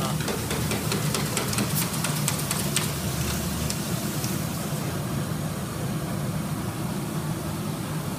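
Coffee roaster's cooling tray running, with a steady machine hum from its fan and stirring-arm motor as the roasted beans are stirred. A scatter of sharp clicks sounds through the first three seconds.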